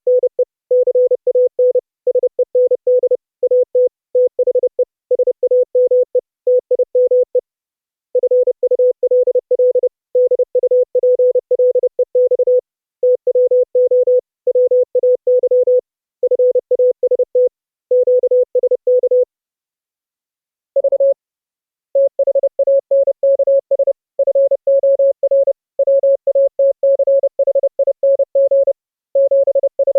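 Morse code (CW) audio tone near 500 Hz keyed rapidly on and off in dots, dashes and word gaps. After a short break about two-thirds of the way through, a slightly higher-pitched CW tone takes over, another operator's signal coming through the mixer.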